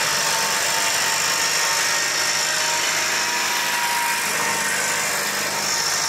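Sidecar motorcycle engine running steadily as it drives past, under a loud, even rushing noise.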